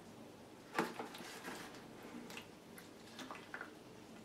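Plastic tubing handled against the inside of a plastic bucket: one soft knock about a second in, then a few faint clicks over low room noise.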